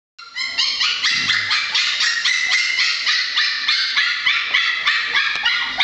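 A litter of six-week-old Scottish terrier puppies yapping and yipping nonstop, many high-pitched calls overlapping at several a second.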